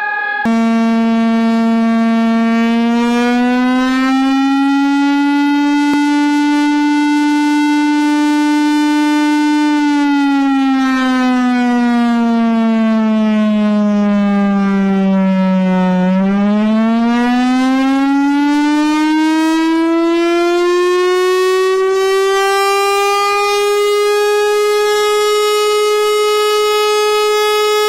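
A loud, buzzy siren-style alarm tone sounding continuously and sliding slowly in pitch. It rises a little over the first few seconds and holds, sinks gradually to its lowest about 16 seconds in, then climbs back up to a higher note and holds there.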